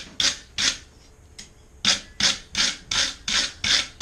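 Wire brush scrubbing a freshly forged steel hook in short, even strokes, about three a second. Two strokes, a pause of under a second, then about six more.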